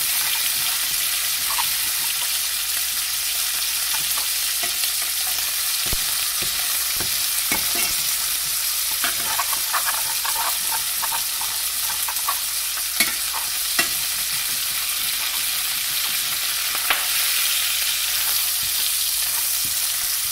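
Chicken pieces sizzling in a hot pan while a metal spoon stirs them and scrapes the stuck-on browned bits off the pan bottom. A steady frying hiss runs throughout, with scattered sharp scrapes and clinks of the spoon against the pan.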